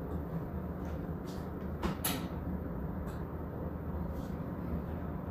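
A few light clicks and taps from small craft items being handled on a table, the loudest about two seconds in, over a steady low room hum.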